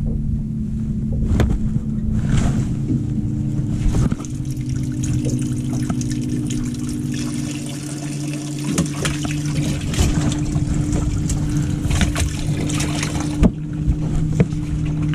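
A steady motor hum aboard a bass boat, with water trickling and splashing and a few sharp knocks, one about four seconds in and one near the end.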